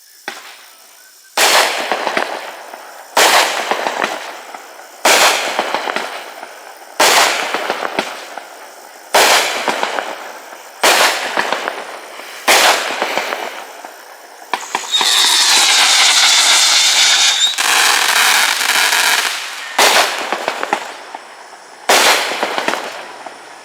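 A 500-gram multi-shot firework cake firing, one loud shot about every two seconds, each followed by a fading crackle. About two-thirds of the way through, a steady high whistle runs for a couple of seconds between shots.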